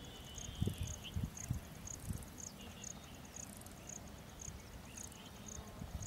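An insect chirping in short high-pitched pulses, about two a second, over irregular low thumps.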